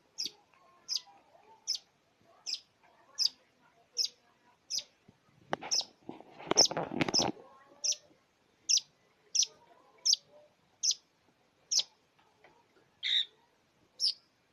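Long-tailed shrike (cendet) calling: a short, sharp, high note repeated about every three quarters of a second, with a louder harsh, rasping burst about six seconds in and a lower, different call near the end.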